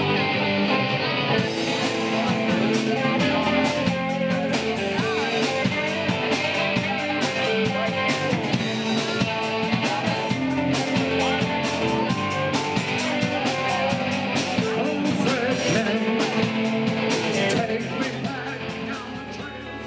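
Background rock music with guitar, a steady beat and singing, fading down near the end.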